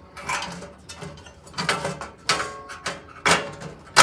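Blower fan knocking and scraping against the metal air duct of a fireplace insert as it is slid across and set into the bottom of the duct. About five sharp clanks that ring briefly.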